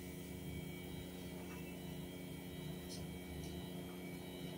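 Steady low electrical or machine hum made of several steady tones, with a couple of faint ticks about three seconds in.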